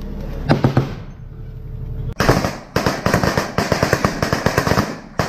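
An armoured vehicle's engine running with a few sharp clicks, then about two seconds in a sudden start of rapid, overlapping small-arms gunfire, many shots a second.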